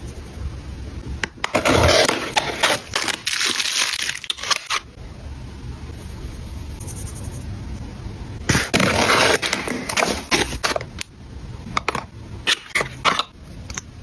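Packaging being handled and opened: two long bursts of crinkling and scraping, then a few sharp clicks near the end.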